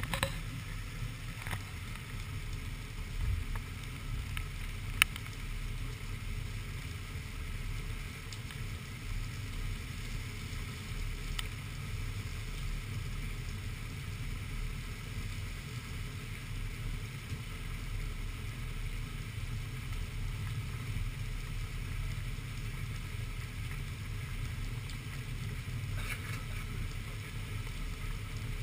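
Heavy rainstorm: a steady, muffled low rumble of rain and wind, with a few sharp ticks of drops striking the camera, the clearest about five seconds in.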